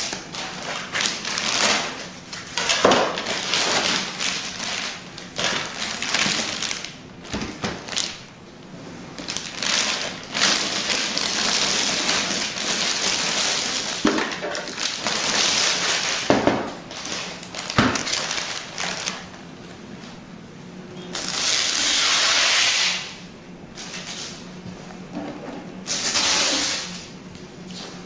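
Packaging being handled: cardboard and plastic rustling and scraping in irregular spells, with scattered knocks, and two longer hissing rushes of sliding or tearing near the end.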